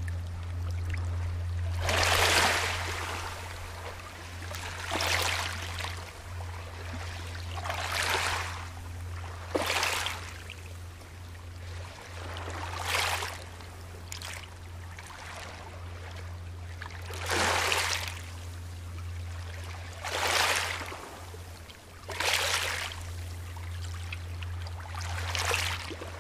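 Small Baltic Sea waves washing in over a pebble beach, a swell of hissing wash every two to three seconds, over a steady low hum.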